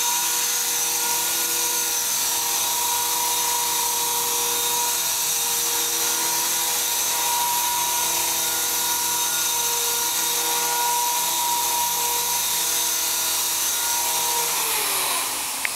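Align T-Rex 450 Pro electric RC helicopter hovering, a steady high whine of the motor and gears over the hiss of the rotor blades. Near the end the pitch falls as the rotor spools down.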